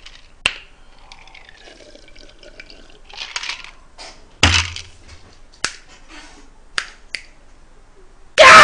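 Sharp clinks of ice cubes in a drinking glass and a couple of short noisy bursts from drinking, then a loud, strained vocal outburst near the end.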